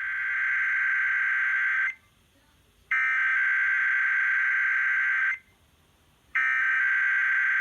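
Emergency Alert System SAME header tones heard over a radio: three bursts of warbling digital data tones, each about two seconds long, spaced about a second apart. They are the coded start of a required weekly EAS test.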